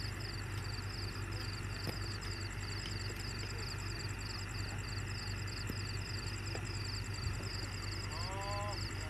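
Steady low hum of a heavy machine's engine running at a night rerailing site, with a rapid high chirping repeating about four to five times a second, typical of night insects. Near the end, a short voice call rises and then holds.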